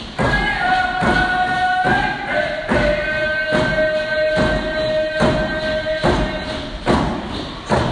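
A steady drum beat, a little more than one stroke a second, under voices singing long held notes. The sung note steps down in pitch about two seconds in. This is a Northwest Coast dance song performed with drum and voices.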